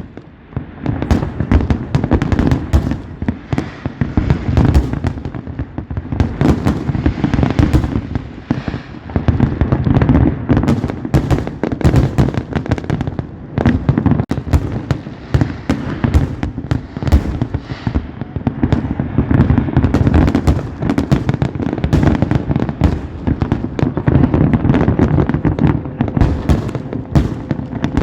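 Fireworks display: a dense, continuous barrage of aerial shell bursts, bangs and crackling, with booming echoes.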